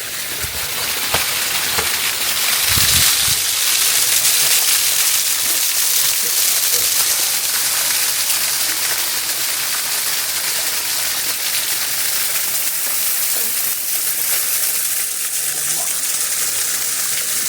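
Partly frozen waterfall, water rushing and splashing in a steady, loud, hissing stream.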